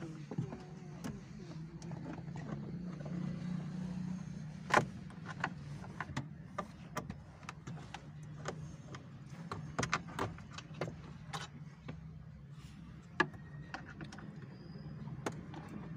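Scattered sharp clicks and clacks of hand tools and parts being worked on a car's dashboard, over a steady low hum; the loudest knock comes about five seconds in.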